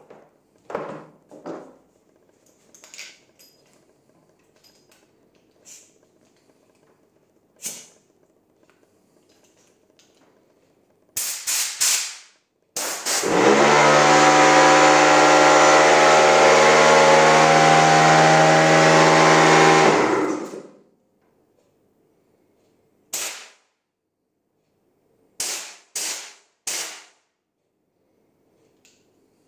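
Short hissing blasts of compressed air from a blow gun drain the tank of a Pattfield PE 833K portable air compressor: four quick blasts about eleven seconds in, after which the pressure drops to the lower preset limit and the compressor motor switches on. The motor runs steadily at a constant pitch for about seven seconds, then shuts off suddenly, and four more short air blasts follow near the end.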